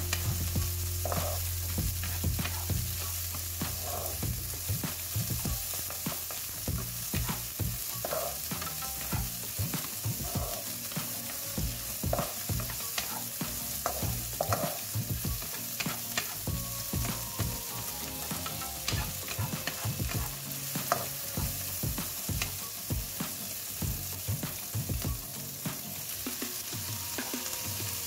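Chopped onion and chilies sizzling as they are stir-fried in a nonstick wok, with a wooden spatula scraping and tapping against the pan over a steady frying hiss.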